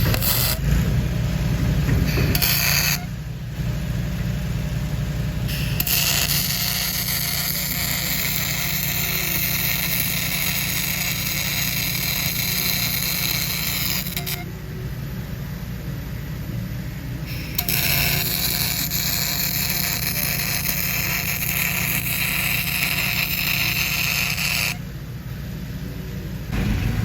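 Aluminum MIG welding with a spool gun: the arc hisses and crackles in two long beads of about eight and seven seconds with short pauses between them. Under it runs the steady drone of a Miller Trailblazer engine-driven welder-generator.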